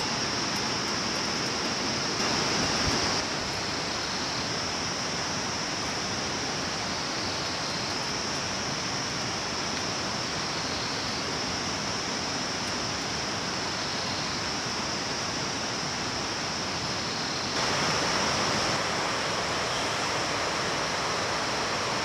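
Steady rush of a stream running over rocks, with a constant high whine over it; the rush swells a little briefly about two seconds in and again near the end.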